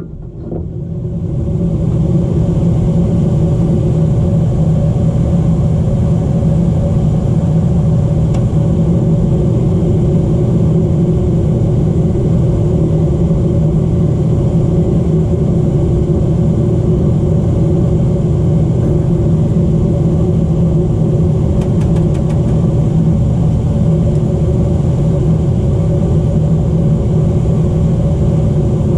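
Luxaire gas furnace running: a steady, loud low motor hum that builds up over the first couple of seconds and then holds steady.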